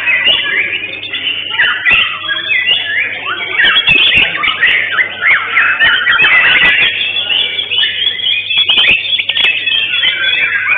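White-rumped shamas (murai batu) singing in competition: several birds pour out fast, overlapping whistled and chattering phrases without a break. A few sharp clicks cut through the song.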